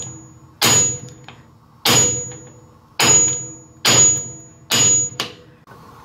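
Hammer striking a large socket used as a driver to tap an oil seal into the Ford 8.8 rear differential housing. Five solid blows roughly a second apart, each with a short high metallic ring, then a lighter tap, after which the hammering stops near the end.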